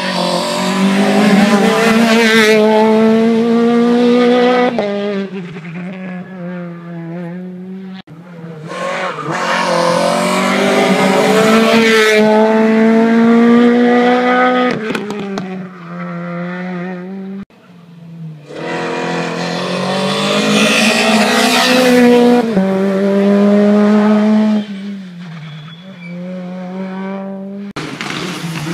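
Rally cars at full throttle on a tarmac stage, three separate passes in turn: each engine revs high with a rising pitch, drops back at each upshift and climbs again. Each pass cuts off abruptly.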